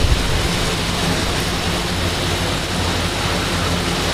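Steady background noise with a low hum underneath, even throughout.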